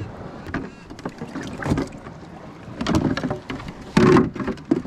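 A kayak's pedal drive being fitted into its drive well: a run of knocks and clunks, the loudest about four seconds in.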